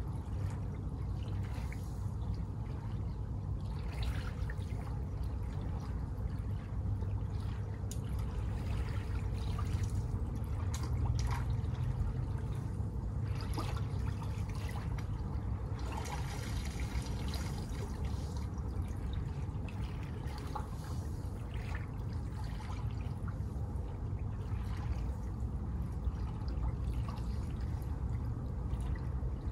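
Small sea waves lapping and washing on a beach, in irregular swells every few seconds over a steady low rumble.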